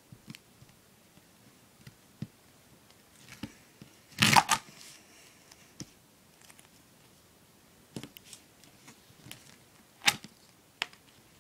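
Hands working duct tape on a plastic cutting mat: scattered light taps and rustles, with one short, loud crackle of tape about four seconds in and a few sharp clicks near the end.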